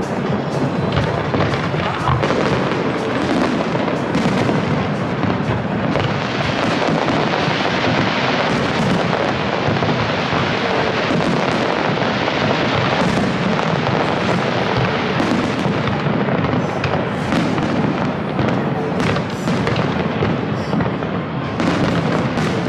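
Fireworks display: a continuous barrage of aerial shells bursting, with many sharp bangs and crackles over a dense, unbroken din.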